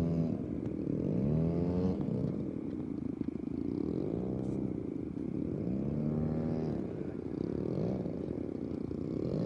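The twin DLE-35RA single-cylinder two-stroke gasoline engines of a large radio-controlled F7F Tigercat model running at high power as it takes off, the pitch swelling and falling back every couple of seconds.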